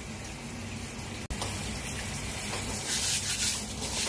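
Steel wool scrubbing the charred skin of a grilled pork leg under a running tap: a rasping rub over the hiss of water, with the strokes growing louder and more uneven in the second half. The sound briefly cuts out about a second in.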